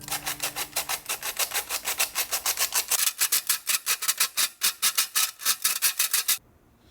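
Quick, even rubbing or scrubbing strokes, about five a second, that stop abruptly near the end.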